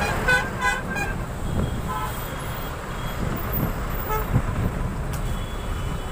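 Vehicle horns tooting in slow highway traffic: a few short toots in the first second, then single toots around two seconds and four seconds in. Under them runs the steady low rumble of the motorcycle ride.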